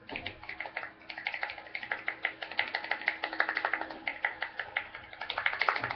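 Hands clapping quickly, several claps a second in a steady run.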